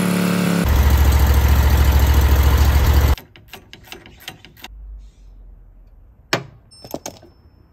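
Vermeer SC362 stump grinder's engine running, getting louder and heavier with a deep low pulsing about half a second in, then cut off abruptly. It is being run to turn the axle so the bolt hole lines up. Near the end come a few sharp metal clicks of a ratchet wrench on the wheel hub.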